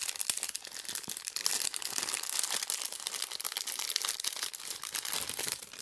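Packaging crinkling and rustling as it is handled, a dense run of fine crackles that stops just before the end.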